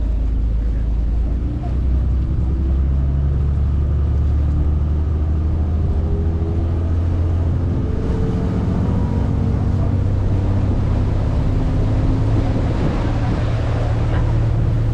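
Tour boat's engine running under way, a steady low hum whose pitch rises gradually as the engine speeds up.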